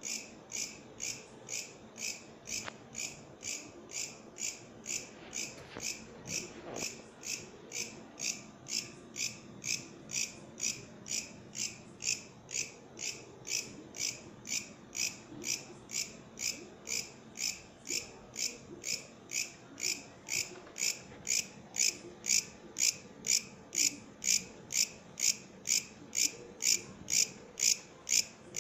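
Katydid (bush cricket) singing: a steady train of short, high-pitched chirps, about two a second, growing louder about two-thirds of the way through.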